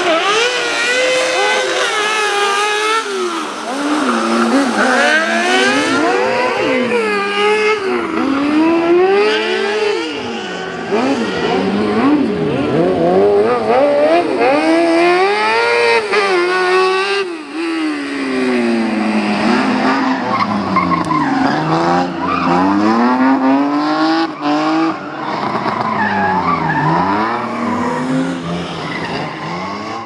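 Car-cross buggy engines revving high and dropping back again and again as the buggies are driven hard through turns, with tyres skidding on wet tarmac. The sound fades out at the very end.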